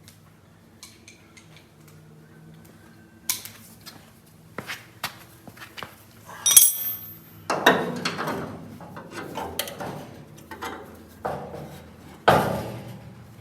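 Metal hand tools clinking and clanking against the truck's door hinge bolts: scattered light clicks, a sharp ringing metallic clank about halfway through, then a stretch of rattling and scraping with a louder knock near the end.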